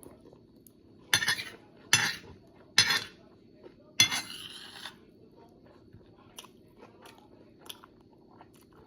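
Cutlery scraping and clinking on a plate while eating: four rough scrapes about a second apart early on, then a few light clicks, over a steady low hum.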